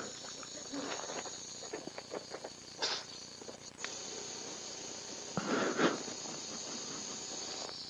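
Faint steady hiss of operating-room equipment, with scattered light clicks and taps of surgical instruments and a brief muffled rustle about five and a half seconds in.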